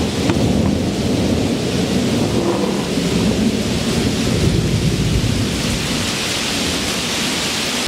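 Steady heavy rain with a low rolling rumble of thunder.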